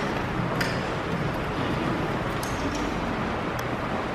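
Steady background room noise with a few faint, short clicks.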